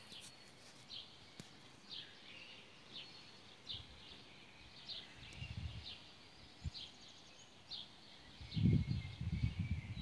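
A bird chirping over and over, one short high chirp about once a second, with fainter calls from other birds. Low rumbles on the microphone near the end.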